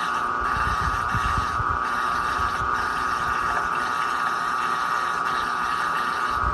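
Electrolux 10 kg top-load washing machine in its spin cycle, running with a very loud, steady high-pitched whine over a low rumble: the noise of a worn motor bearing.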